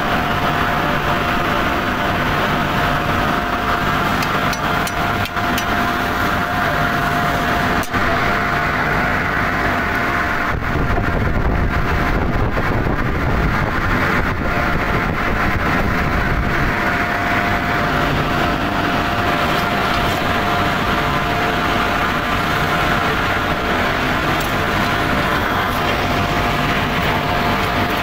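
Steady industrial machinery noise at a continuous casting machine: a constant rumble with a steady mid-pitched whine running through it and a brief click about eight seconds in.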